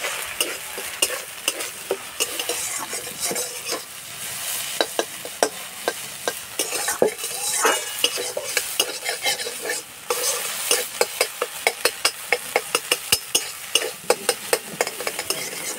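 Eggs sizzling as they fry in oil in a steel kadai, with a metal spatula repeatedly scraping and tapping the pan to scramble them. The strokes come faster and more regularly in the second half, about three a second.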